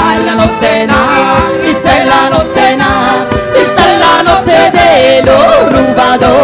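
Salentine folk band playing live, with a woman singing lead over a steady percussion beat.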